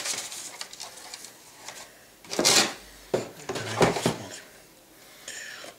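Cardboard model-kit box being handled and moved on a cutting mat: rubbing and scraping, with two louder knocks about two and a half and four seconds in.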